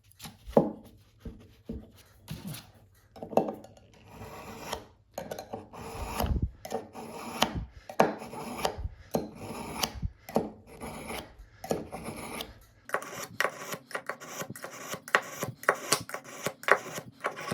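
A kitchen knife blade scraped repeatedly through the hard steel sharpening notch of a pocket multi-tool. Each pass is a short rasping stroke; the strokes are spaced out at first and come quickly, several a second, in the last few seconds.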